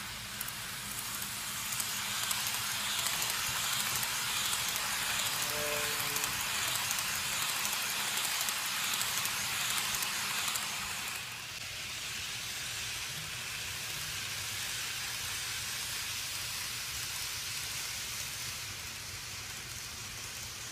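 N-gauge model Shinkansen train running on the track: a steady rattling hiss of the wheels on the rails with a low motor hum. It grows louder about two seconds in as the train passes close, then drops back just past the middle.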